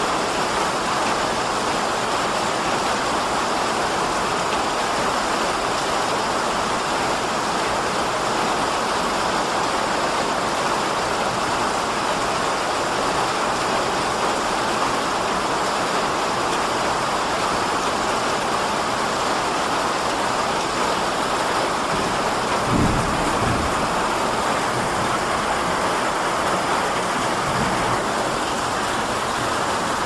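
Powerful rain on a tin roof, a loud, steady, unbroken rush of water, with a brief low thump about two-thirds of the way through.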